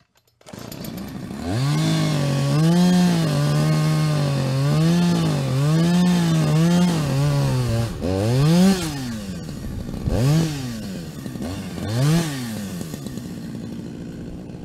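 A small engine revving, its pitch rising and falling over and over, then three short separate revs near the end.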